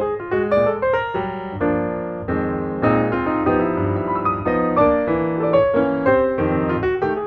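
Background music: piano, a stream of quick notes with chords underneath.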